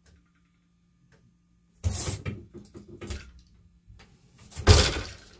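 Wooden eight-shaft loom at work: a clattering run of knocks from the loom frame about two seconds in, then near the end a heavy thud as the beater is pulled against the cloth to pack in the weft.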